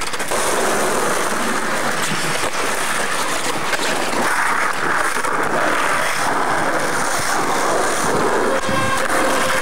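Skateboard wheels rolling steadily over street pavement, a constant rough noise picked up on a camcorder microphone.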